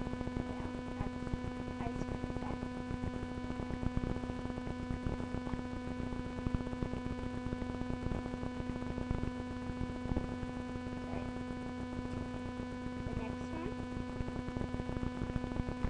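Steady electrical hum with a constant crackle of noise, picked up by a webcam's built-in microphone.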